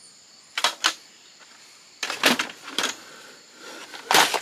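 Sharp clicks and clatters of small hard parts being handled while a fax machine is taken apart by hand: a pair about half a second in, a few more around two seconds in, and the loudest just before the end.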